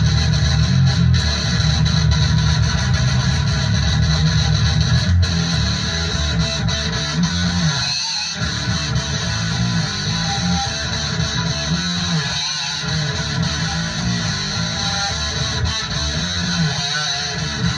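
Heavy metal music led by electric guitar, with brief drop-outs about halfway through.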